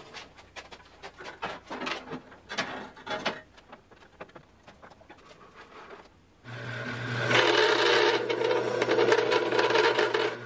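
A few scattered clicks and knocks of handling, then about six and a half seconds in a large homemade bandsaw starts with a steady hum. About a second later it begins cutting a block of wood, a loud steady rasp that lasts to the end.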